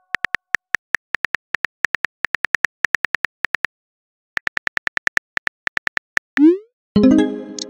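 Simulated phone-keyboard typing clicks from a texting-story app, several quick taps a second with one short pause. Near the end a quick rising whoosh as the message sends, followed by a short synthesized chime.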